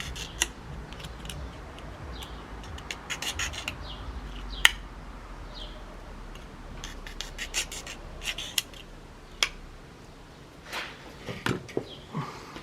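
Hard plastic being handled and worked by hand: rubbing and scraping with many scattered sharp clicks and snaps, the loudest a single crack a little past four seconds in.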